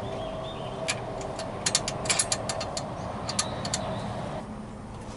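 Socket ratchet clicking in short, irregular bursts as a seat-base bolt is turned, over a steady hum that stops near the end.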